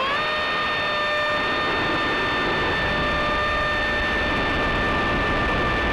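Electric ducted fan of an RC F/A-18 foam jet running at steady high throttle: a high whine that settles in pitch right at the start after spooling up, then holds steady over a rush of air.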